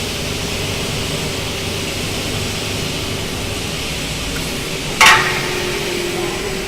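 Double-head aluminium cutting saw (Sinon 08S) running with its saw blade spinning: a steady mechanical whir with a faint held hum. About five seconds in comes one sharp metallic clank that rings briefly.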